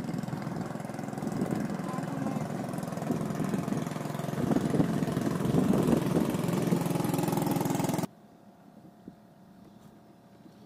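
Small boat engine running steadily, stopping abruptly about eight seconds in, leaving faint open-water ambience.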